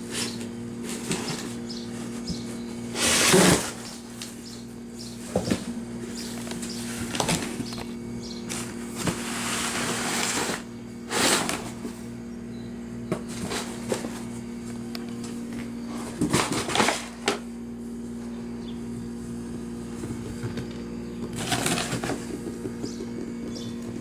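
Cardboard rustling and scratching in about half a dozen short bursts, one lasting over a second, as a kitten scrabbles in a cardboard box fort, over a steady low hum.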